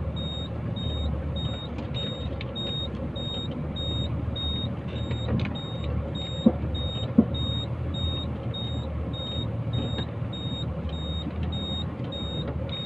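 Dump truck diesel engine running under a steady, regular high-pitched beeping of about two beeps a second, the truck's reversing alarm, with a couple of short knocks midway.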